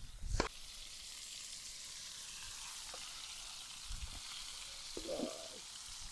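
Food sizzling steadily as it fries in a pan over a wood fire, with a few soft knocks.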